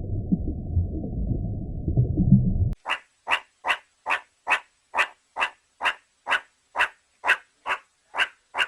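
A low, muffled rumbling that stops abruptly about three seconds in. Then an animal calls in a steady rhythm, short calls a little more than twice a second, about a dozen in a row.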